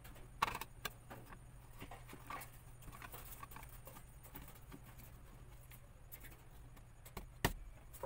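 Screwdriver driving the screws of a plastic junction box cover: scattered small clicks and scrapes, with a sharper knock near the end.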